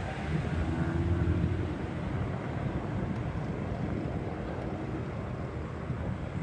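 Distant jet engine rumble of a Boeing 737-800 and its CFM56-7B turbofans as the airliner approaches. The sound is a steady low rumble that swells slightly about a second in.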